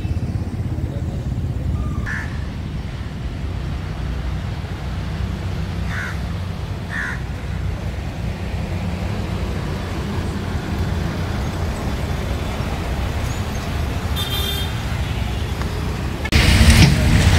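Steady low rumble of road traffic, with a few short chirps scattered through it. Near the end the rumble grows suddenly much louder.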